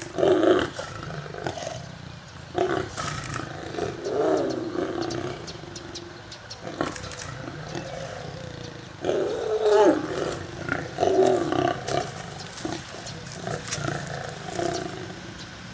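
Lions roaring in a series of loud, rough calls separated by short pauses, the loudest bouts near the start and about nine to ten seconds in.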